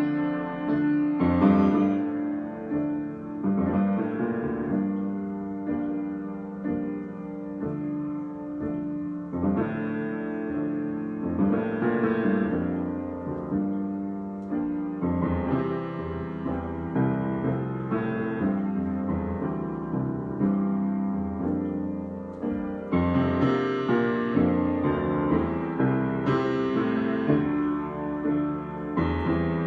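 Solo piano improvisation: chords with a melody over them, the notes ringing on and overlapping, growing louder about two-thirds of the way through.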